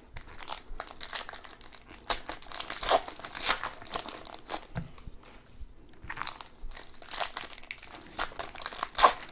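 Plastic wrapping of a trading-card box or pack crinkling and tearing as it is opened by hand, in dense irregular crackles with a short lull about five seconds in.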